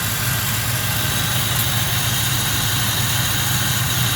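1996 Chevrolet Caprice engine idling steadily under the open hood, with the air conditioning running on full blast.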